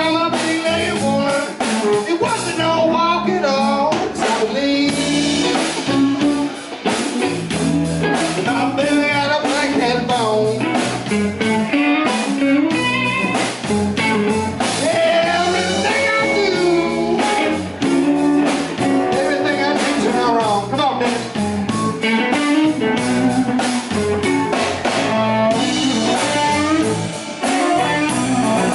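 Live electric blues band playing: electric guitars, electric bass and drum kit, with a man singing.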